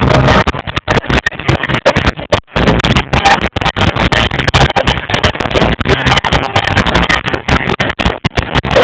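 Live reggae band music picked up by an overloaded phone microphone, so badly distorted that it sounds like a dense roar. It keeps cutting out in brief dropouts throughout.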